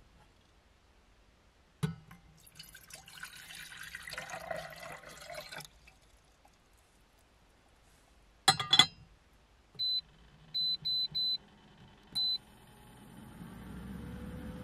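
Water poured from a small pot into a Tsukiusagi enamel drip kettle, then the kettle's lid set on with two sharp clinks. The induction cooktop then beeps as its buttons are pressed (one beep, three quick ones, then one more) and starts heating with a low hum that rises in level.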